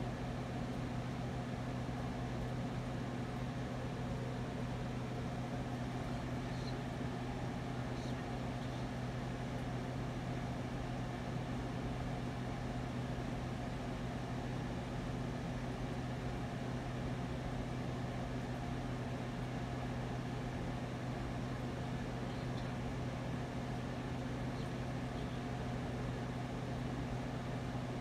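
Spirit box radio sweep giving continuous static: a steady hiss over a low, even hum.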